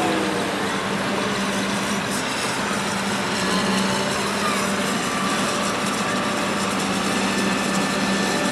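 Vintage farm tractor's engine running steadily under heavy load while pulling a weight-transfer sled.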